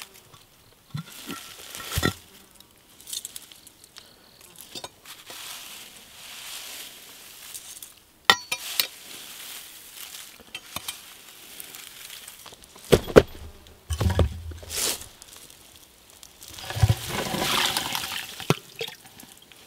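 A concrete inspection-chamber cover being lifted off and laid down in the grass: scattered knocks and scrapes, several seconds apart.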